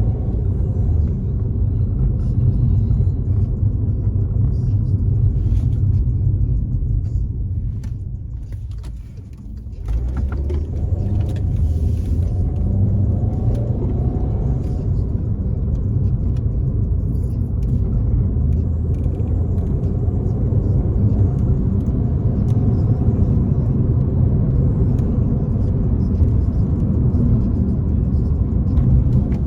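Volkswagen Jetta driving: a steady low engine and road rumble. It dies away for a couple of seconds about eight seconds in, then comes back abruptly.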